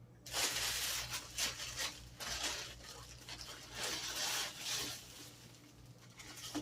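Plastic parts and their packaging being handled, rustling and rubbing in irregular bursts that start a moment in.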